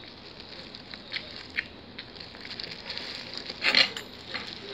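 Disposable plastic glove crinkling and rustling as it handles food, with a few short clicks and one louder crackle about three and a half seconds in.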